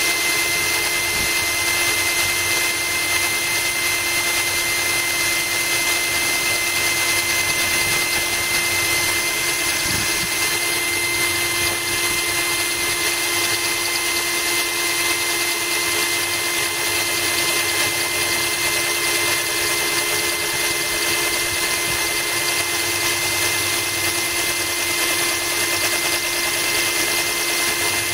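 Genesis cordless drill running steadily at an even speed, its bit grinding into a glass bottle under a trickle of cooling water from a garden hose.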